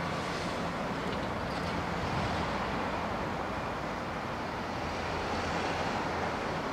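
Steady, low running rumble of an electric train approaching from a distance, with a faint hum underneath.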